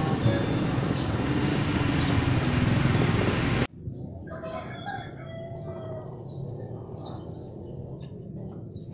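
A loud, dense din that cuts off abruptly a little over three seconds in, giving way to quieter outdoor ambience with scattered short bird-like calls, likely chickens.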